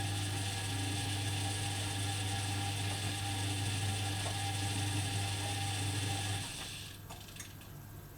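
Privileg Dynamic 4612 washing machine's motor turning the drum with a low hum and a mechanical whir, stopping about six and a half seconds in; a single click follows about a second later.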